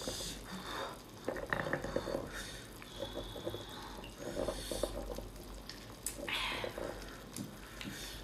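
Wet, sticky clicks and smacks of large sauced sea snails being handled, the meat pried out of the shell with a metal pick, along with eating sounds close to the microphone.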